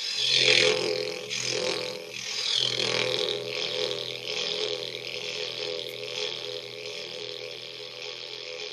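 Didgeridoo playing a steady low drone with shifting, vocal-like overtones, pulsing in the first few seconds and then fading away gradually as the playing ends.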